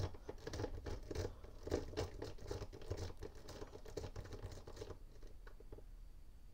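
Lock pick raking across the pin stack of a Yale Y210C/51 padlock, a quick run of faint scratchy clicks that dies away about five seconds in.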